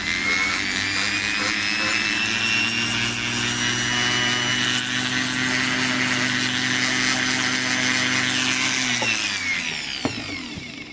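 Foredom rotary tool spinning a small brass wire wheel against a steel knife blade to strip surface rust, with a steady high whine and scratching. Near the end the motor slows and stops.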